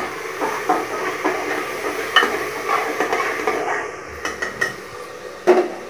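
A slotted spatula stirring and scraping frying onion-tomato masala with whole spices inside an aluminium pressure cooker, with irregular scrapes and taps over a light sizzle. There is a louder clack near the end.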